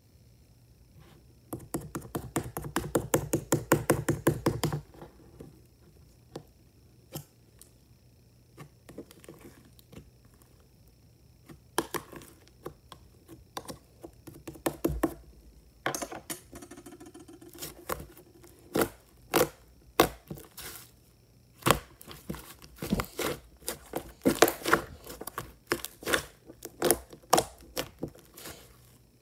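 Yellow clay slime being squished, poked and pulled by hand, giving sticky clicks and small air-bubble pops. It starts as a fast run of clicks, then turns to scattered sharp pops.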